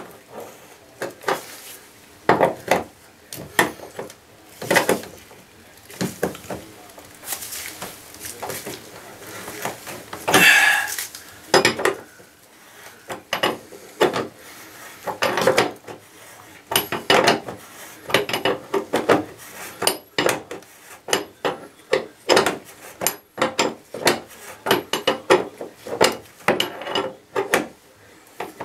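Open-end wrench clicking and clinking against a bathtub faucet's valve stem nut and chrome trim as it is worked on the stem. The clicks come irregularly, more often in the second half, with one longer scrape about ten seconds in.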